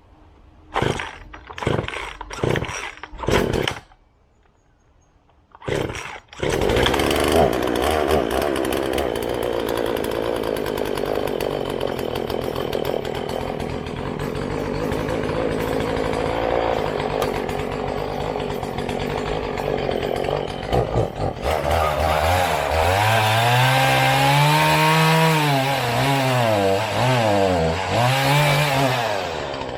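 Gas chainsaw pull-started: several quick short pulls, then it catches about six seconds in and runs loudly. From about 22 seconds in it is revved up and down repeatedly with the throttle.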